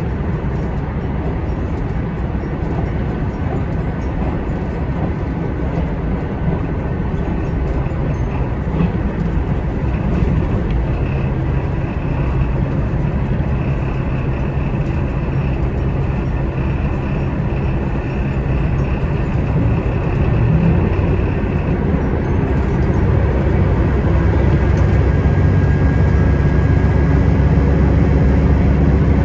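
HOT7000 series diesel railcar running along the line, its engine and wheels on the rails making a steady low drone. A faint high whine sits over it for several seconds mid-way, and the noise grows louder near the end.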